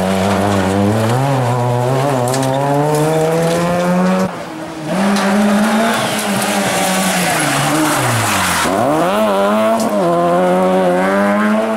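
Two rally cars in turn, a Suzuki Swift and then a Peugeot 206, revving hard through a tight hairpin. Each engine note climbs as the car accelerates out of the bend; about three-quarters of the way through the pitch drops briefly, then rises sharply again as the second car pulls away.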